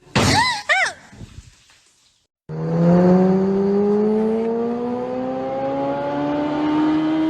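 A couple of brief calls rising and falling in pitch, then a motor-like sound running steadily with its pitch climbing slowly and evenly for about five seconds, like an engine accelerating.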